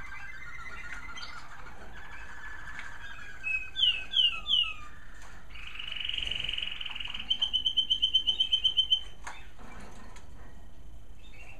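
American Singer canaries singing. Soft warbling trills come first, then three loud swooping notes about four seconds in, then a long, fast, rolling trill that stops about nine seconds in.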